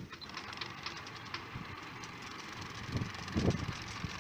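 Autohelm ST1000 tiller pilot's electric motor and worm-gear drive running, pushing its ram out against the tiller with a steady whir and a couple of low knocks near the end. The ram's travel is still a bit juddery, which the owner puts down to a slightly bent slider rod inside.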